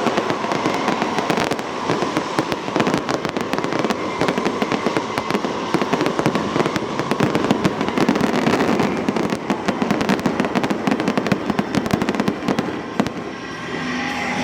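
Fireworks display going off: a dense, continuous crackle of many rapid pops and bangs that eases off near the end.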